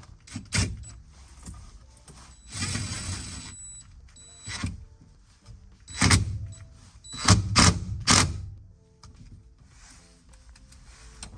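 A series of separate knocks and clicks, the loudest several close together about six to eight seconds in, with a short rustle near three seconds in: tools and steering-wheel parts being handled while screws are tightened.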